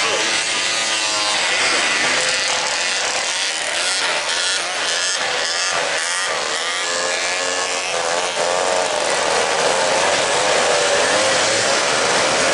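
Several small youth racing snowmobiles running together, their engines buzzing and revving up and down, the pitches overlapping and wavering as the sleds pass.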